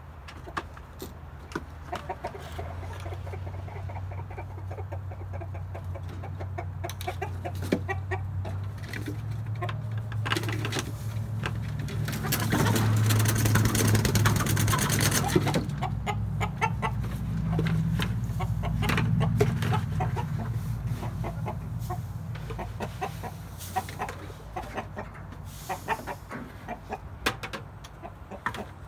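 Chickens clucking, with a low steady hum underneath and scattered clicks and knocks. About twelve seconds in comes a loud rustling rush lasting about three seconds, as the bin of bedding is handled.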